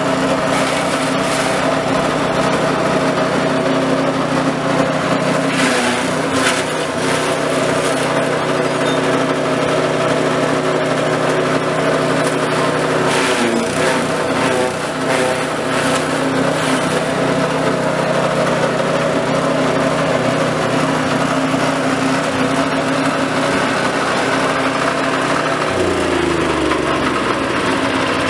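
Small engine running a six-blade grass chopper steadily as fodder grass is fed in and cut, with a few short bursts of chopping noise as stalks go through the blades. Its pitch sags near the end as the machine takes load.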